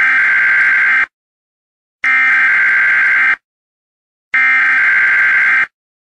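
Warning alarm sound effect: three long buzzing tones, each a little over a second, separated by gaps of about a second of silence.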